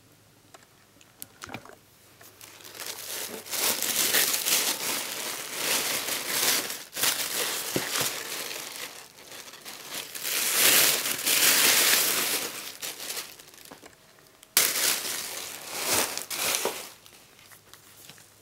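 White tissue paper crinkling and rustling as it is pulled back and handled, starting about three seconds in and going on in long waves; after a short lull a sharp new burst of crinkling comes in about three-quarters of the way through and dies away near the end.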